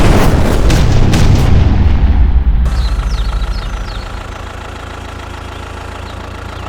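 A loud boom with several sharp cracks over the first two seconds, trailing off into a low rumble. About three seconds in it gives way to a quieter steady mechanical hum.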